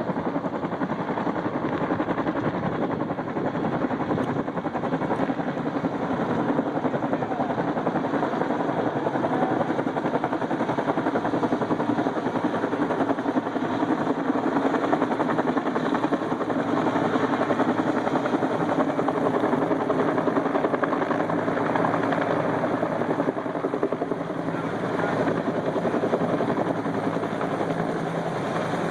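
Helicopter running steadily at close range, its rotor blades chopping fast over a steady turbine whine.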